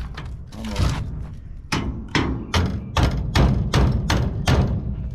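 Hammer striking to knock rivets out of a scrapped golf cart charger. After a short lull, a run of about eight sharp blows at a steady two or three a second begins a little under two seconds in.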